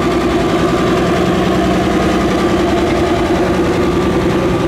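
Farmall 706 tractor engine running at a steady, even speed as the tractor drives past close by.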